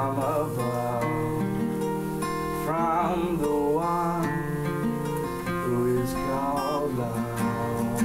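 Acoustic guitar strummed in a slow song, with a boy's voice singing two drawn-out phrases over it, about three seconds in and again around six to seven seconds.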